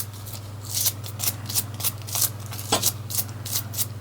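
A stiff, cut-down paintbrush scrubbing the rubber button mat of a TV remote control in quick strokes, about four or five a second, brushing out dust and dirt.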